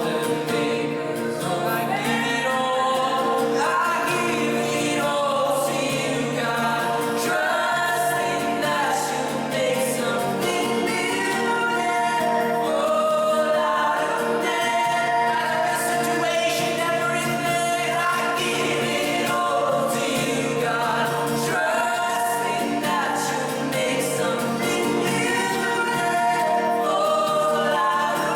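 A choir singing a gospel hymn over steady, held instrumental chords.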